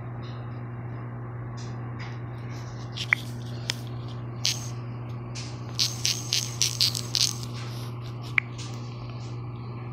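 Light clicks from typing on a phone's touchscreen keyboard, bunched together in a quick run about six to seven seconds in, with a couple of sharper single ticks before and after, over a steady low electrical hum.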